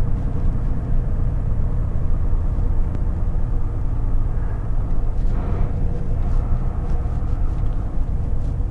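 Steady low rumble of a Mack semi truck's diesel engine, heard from inside the cab.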